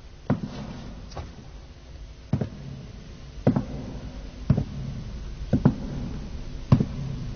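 Slow, evenly paced footsteps, about one step a second, each a sharp knock echoing in a large empty hall, over a steady low hum.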